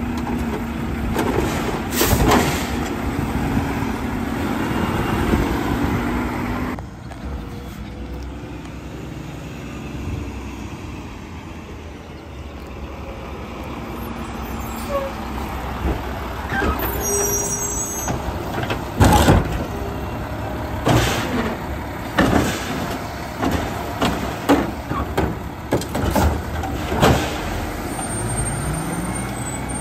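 Mack garbage truck: its hydraulic arm system runs with a steady hum while setting a cart down, then cuts off abruptly about seven seconds in. After that the diesel engine pulls the truck away and along the street, with several sharp hisses and clunks in the second half.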